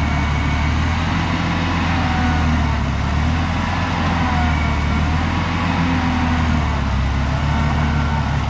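Caterpillar 953 track loader's diesel engine running under load, a steady drone with slight rises and falls in pitch, as the machine, buried to its undercarriage, tries to work itself free.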